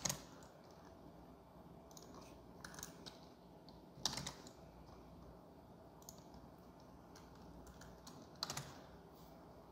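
A few scattered keystrokes on a computer keyboard, faint and sparse, with the clearest one about four seconds in and a short cluster of clicks near the end.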